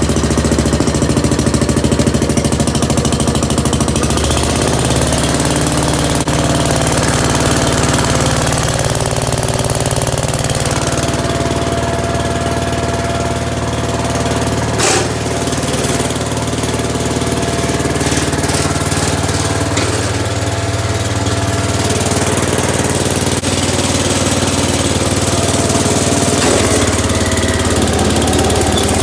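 C10A garden tractor's engine running steadily just after being jump-started on a weak battery, its speed shifting a couple of times. One sharp click about halfway through.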